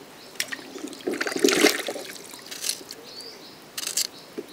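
Water splashing and dripping in a large iron wok as raw bananas are rinsed and handled in it, in a few short bursts, the loudest about a second and a half in. A bird chirps short rising notes again and again.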